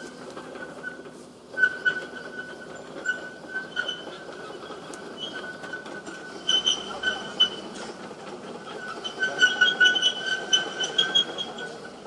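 Heavy work machine moving along a track, with a high metallic squeal that keeps starting and stopping and loud clanks between the squeals.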